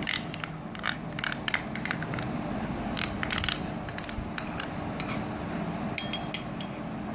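A metal spoon scraping thick mayonnaise out of a cup and knocking against a glass bowl: a string of short scrapes and clicks, with a few ringing taps on the glass near the end.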